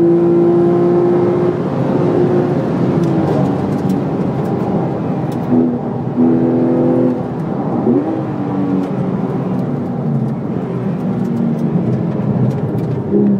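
Porsche 911 GT3 RS 4.0's naturally aspirated 4.0-litre flat-six heard from inside the cabin, held at high revs on a straight. The revs then fall away, with two short rev spikes about five and six seconds in, and it runs on at lower revs through the corner.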